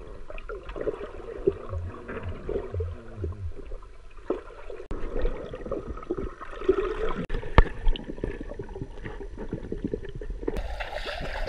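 Muffled underwater bubbling and gurgling in a swimming pool, heard from below the surface, as an English cream golden retriever swims and dives with air streaming off her coat. Scattered sharp clicks run through it, one louder about two-thirds of the way through, and the sound turns brighter and fuller near the end.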